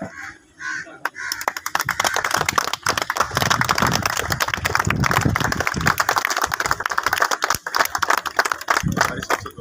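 A crowd clapping, starting about a second in, with voices mixed in.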